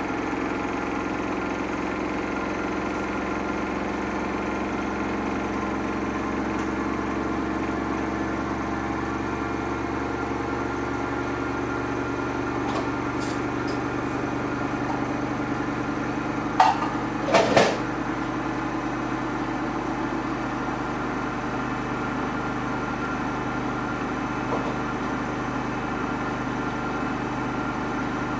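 Samsung washing machine running with a load of towel-wrapped trainers: a steady motor hum, broken about two-thirds of the way through by a brief cluster of two or three loud knocks.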